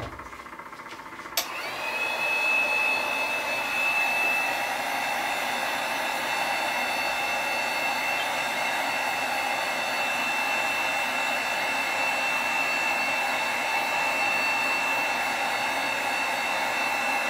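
Handheld heat gun switched on with a click about a second and a half in, then blowing steadily with a constant high whine, warming wet epoxy to make it flow.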